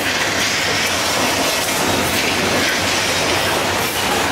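Simulated earthquake in a staged subway station: loud, continuous rumbling and rattling noise with no single standout crash.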